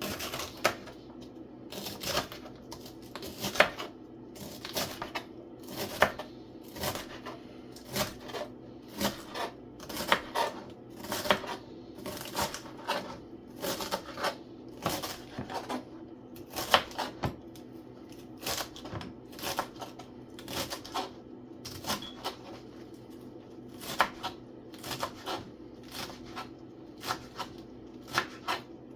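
Knife knocking on a cutting board in short, irregular strokes, about one or two a second, over a steady low hum.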